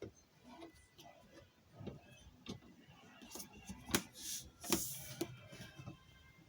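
Scattered sharp clicks and light knocks, with brief rustling bursts about four and five seconds in.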